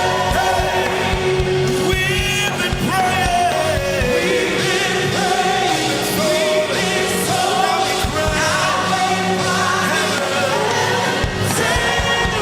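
Gospel worship music: voices singing over a band with keyboard and drums.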